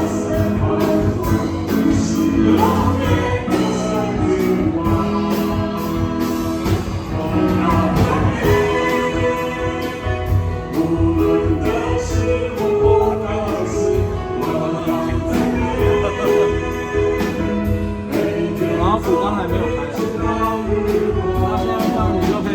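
Church worship band playing a song: several singers with piano over a steady drum beat, with the kick drum carrying the low end.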